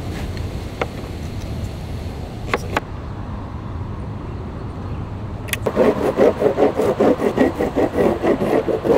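Surf wax rubbed onto a surfboard deck in quick back-and-forth strokes, about four a second, starting a little past halfway and the loudest thing heard. Before that, a steady low rumble with a few light clicks while a fin key tightens the board's Futures fin screws.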